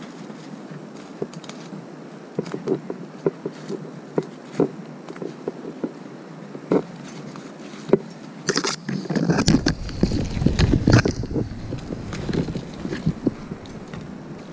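Footsteps crunching over leaf litter and snapping twigs, with branches brushing past as someone pushes through bankside bush. About nine seconds in, a louder stretch of rustling and rumble lasts a couple of seconds.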